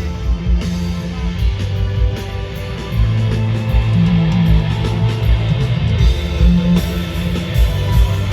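Live pop concert dance music with a steady, heavy beat, bass and guitar, getting louder about three seconds in.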